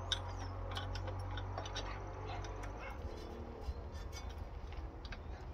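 Metal clinks of bolts, nuts and hand tools being worked on a planter row unit while a seed firmer is refitted, the sharpest just after the start. A steady low hum runs underneath and turns rougher about halfway through.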